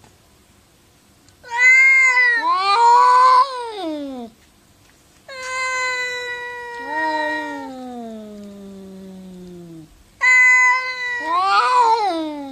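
Domestic cats yowling in a standoff: three drawn-out, wavering calls. The middle call is the longest, about five seconds, and sinks steadily in pitch.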